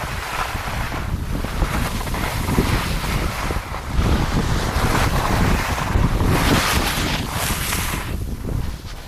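Wind buffeting the microphone: a loud, uneven low rumble with a hiss over it, growing stronger about four seconds in.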